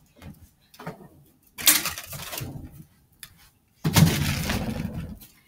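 Two sudden bursts of rattling clatter, each about a second long, one about a second and a half in and one about four seconds in: the large, thin-skinned Wubble Bubble Ball being bounced about and knocking into things.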